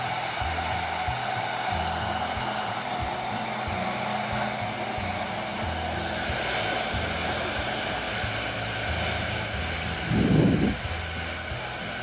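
Hand-held hair dryer blowing steadily: a constant rush of air with a steady motor whine. About ten seconds in comes a brief, loud, low thump.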